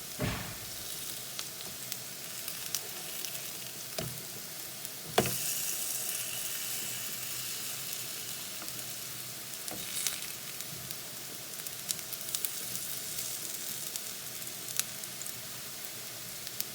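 Besan-battered plantain slices sizzling steadily in hot oil in a frying pan. A few sharp clacks of a utensil on the pan come as the slices are flipped; the loudest comes about five seconds in, and the sizzle gets louder after it.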